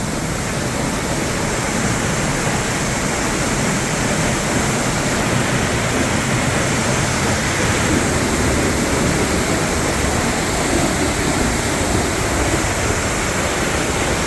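Tunnel Falls, a large waterfall, pouring down: a loud, steady rush of falling water.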